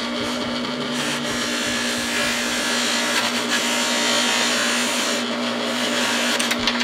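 Electric bench buffer running with a steady hum, its spinning cloth wheel loaded with white polishing compound hissing as the head of a steel bolt is pressed against it and worked around.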